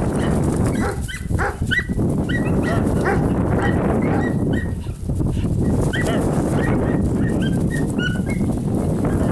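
Small Basenji-mix dog whining and yipping excitedly in many short, high-pitched calls as it chases a training lure, over a steady low rumble.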